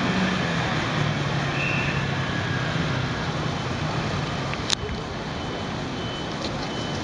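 City street traffic: a steady wash of road noise with a low engine hum through the first half, a short high beep about a second and a half in, and a sharp click a little before five seconds in.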